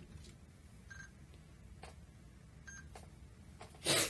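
Quiet room tone with two short, faint beeps about a second and a half apart, then a brief loud hissing burst just before the end.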